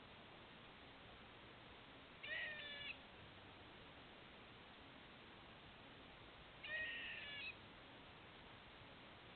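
Squirrel calling twice, about four seconds apart: each a short, nasal, meow-like call under a second long, a sound the uploader takes for hiccups.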